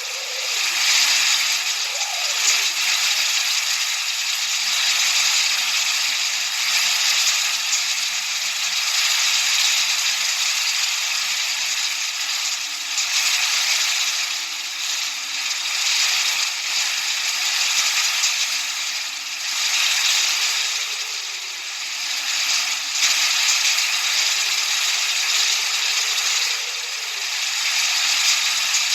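Continuous masking noise of the white-noise kind, a dense high hiss with no low end that swells and eases in loudness every few seconds, over a faint low tone drifting slowly up and down in pitch.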